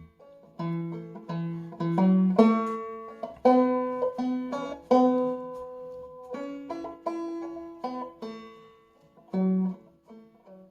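Five-string banjo, tuned to standard G and capoed at the second fret, picking out a melody at a slow, even pace. Each plucked note rings and decays before the next. The notes thin out near the end, with one last note after a short pause.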